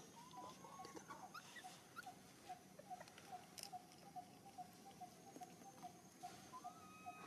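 Faint whimpering squeaks from a newborn macaque, rising in pitch, near the start and again near the end. Under them runs a steady series of short high chirps, about three or four a second.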